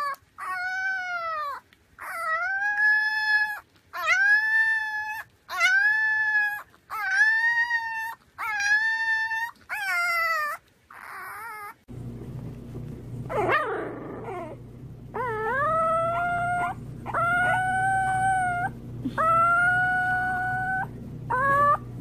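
Puppies howling: a run of about seven short, high howls of about a second each, then, over a low steady hum, a quick sweeping squeal followed by several longer, drawn-out howls.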